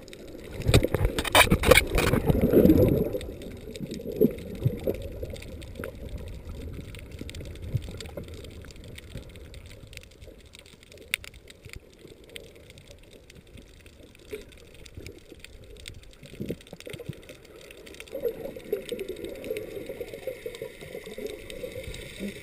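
Muffled underwater sound heard through a camera housing: loud sloshing and bubbling for the first few seconds, then a low steady wash of water with occasional faint clicks.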